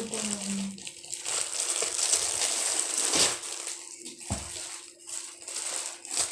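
Rustling handling noise from parts of a shoe rack being fitted together, with two soft knocks about three and four seconds in.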